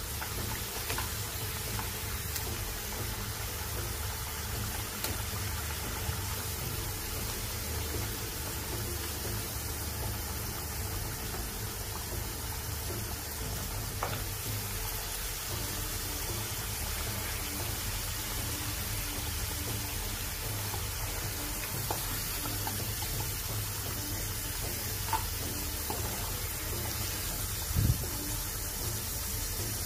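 Potato slices frying in hot oil in a pan, a steady sizzle. A metal slotted skimmer lifts the slices out with a few light clicks, and a louder knock comes near the end.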